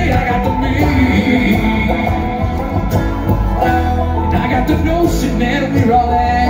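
Live bluegrass string band playing: banjo, acoustic guitar, mandolin and upright bass together.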